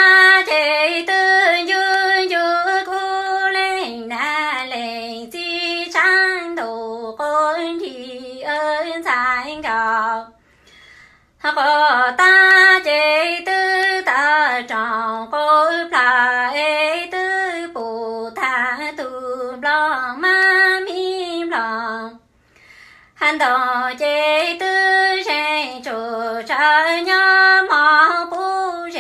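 A woman singing Hmong kwv txhiaj (traditional sung poetry) unaccompanied, in long gliding phrases with two short breath pauses.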